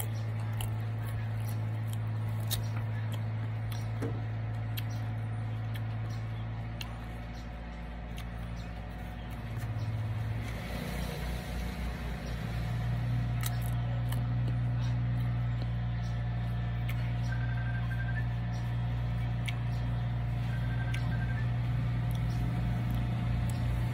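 Chewing and crunching of crisp green mango, heard as scattered sharp clicks, over a steady low hum that drops away for a few seconds in the middle.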